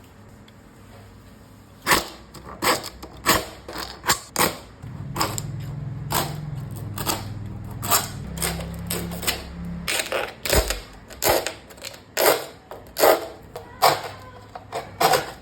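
Hand file rasping along the edge of HPL laminate glued to plywood, trimming the overhang: short, quick strokes, irregular at one or two a second, starting about two seconds in.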